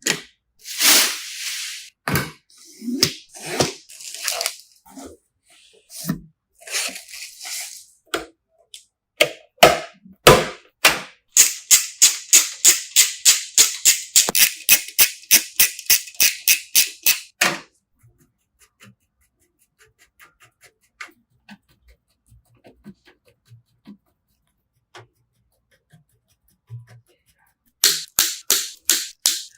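Clicks, knocks and scrapes of computer parts being handled and fitted together. Partway through comes a run of quick, even ticks, about four a second for several seconds, like a ratcheting tool or fastener. A fast run of clicks comes near the end.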